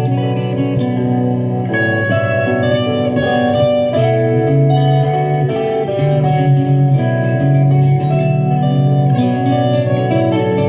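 Guitar music: plucked strings playing a continuous run of notes over a recurring low note.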